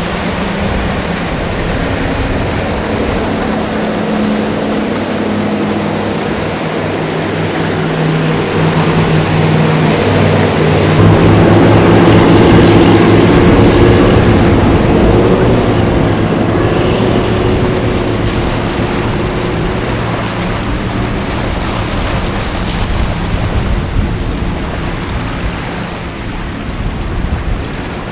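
Formula powerboat running at speed through choppy water: a steady engine note over rushing water and spray. It grows louder about halfway through as the boat passes close, then fades as it pulls away.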